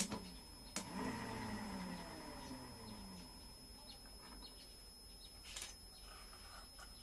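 Two sharp clicks, then the whine of the small 12 V DC motor and its alternator-armature generator rotor falling in pitch as they coast down over about two seconds. A further click comes later.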